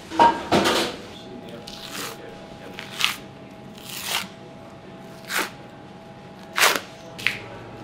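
Hands working a rack of raw beef ribs on a steel table and tearing the membrane off, heard as short rustling, tearing sounds about once a second. A sharp knock comes just after the start, and a steady machine hum runs underneath.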